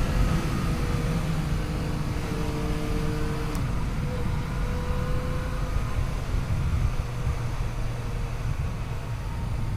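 Yamaha FJ-09's three-cylinder engine running at a fairly steady road speed, with heavy wind rush over the microphone.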